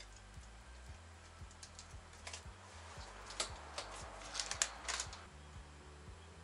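Light clicks and taps of a ceramic bowl and metal spoon being handled, a cluster of them a little past the middle, over faint background music.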